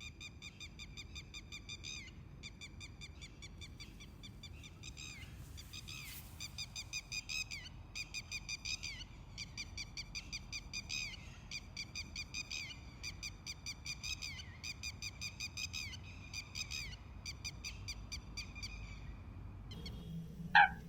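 A bird calling in repeated bouts of rapid, high, evenly spaced notes, each bout lasting a second or two with short pauses between.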